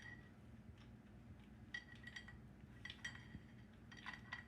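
Faint metallic clinks and light rattles of a motorcycle primary chain and clutch drum being handled and worked into place, a few scattered clicks with a short ring, over a low steady hum.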